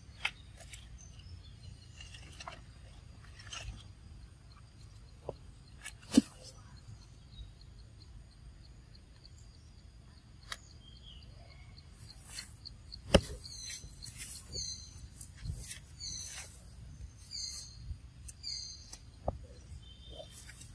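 Forest ambience with faint steady high tones, scattered sharp clicks and rustles, and, in the second half, a run of short high chirps.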